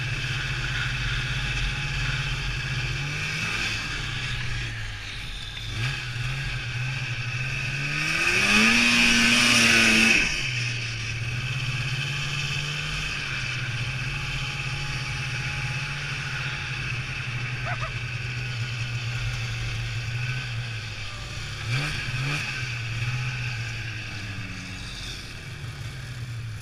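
Two-stroke snowmobile engine running under way. It revs up to its loudest about eight seconds in, then drops back sharply around ten seconds, with shorter throttle blips before that and again near the end.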